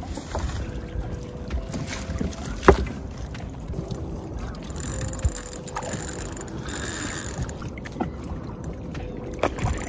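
Small boat rocking on choppy water: waves lapping at the hull, with wind on the microphone and a few sharp knocks, the loudest about three seconds in.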